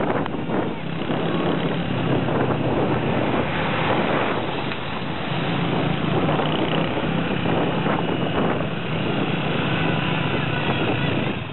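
Motorbike engine running steadily while riding, with heavy wind buffeting on the microphone. It fades out sharply at the very end.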